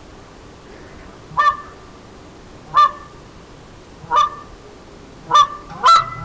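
Ash wood goose call blown in short honks, about one every second and a half, then two in quick succession near the end.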